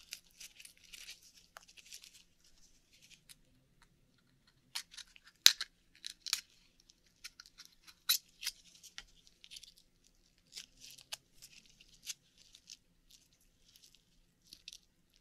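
Akoya pearl oyster being shucked by hand: intermittent crackling and scraping with scattered sharp clicks of shell, the loudest click about five and a half seconds in.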